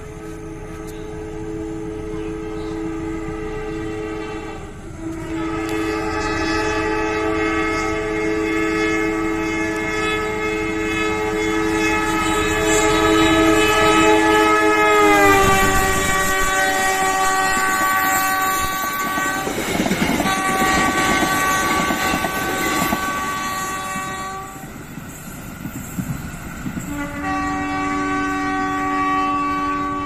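CC 203 diesel-electric locomotive sounding a long multi-note horn as it approaches, the horn's pitch dropping as it passes about halfway through. The passing coaches' wheels clatter over the rails, and the horn sounds again near the end as the train moves away.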